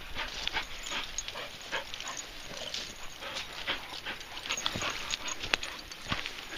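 Dogs moving about close by, with many short irregular steps on the ground.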